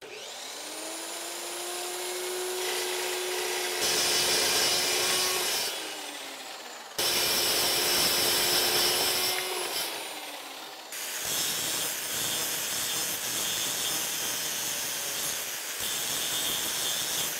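A 14-inch dry-cut metal chop saw spins up to a steady whine and cuts through the thick steel shifter lever, the blade grating in the steel, then winds down about ten seconds in. After that an angle grinder grinds the cut end of the rod, putting a bevel on it for butt welding.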